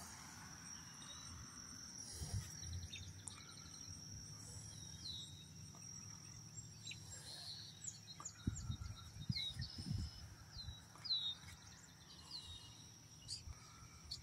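Faint lakeside ambience: a steady high insect drone under repeated short, downward-sliding bird chirps. A few low thumps come around the middle.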